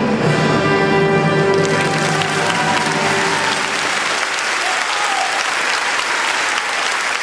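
Audience applause starts about two seconds in, over the last notes of the dance music; the music fades out and the clapping carries on steadily.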